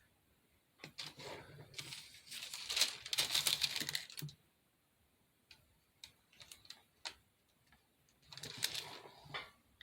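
Light rustling and clicking from small craft pieces being handled and pressed into place, in two spells: one in the first few seconds and a shorter one near the end.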